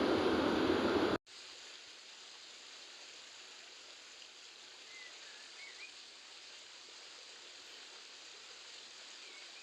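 A loud rushing roar of water cuts off suddenly about a second in. A faint, steady outdoor background with a stream follows, with a few faint short bird chirps.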